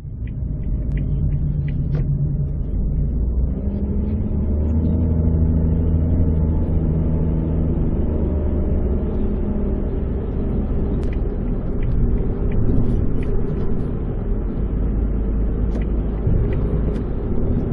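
Cabin noise of a Suzuki Hustler 4WD turbo on the move: a steady low road-and-engine rumble, the engine's hum shifting in pitch as the car speeds up and eases off, with a few faint ticks.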